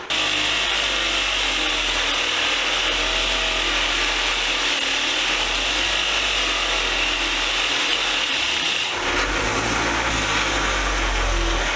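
A power tool abrading rust and grime off a steel C clamp: a steady, harsh scratching that starts suddenly and shifts in tone about nine seconds in.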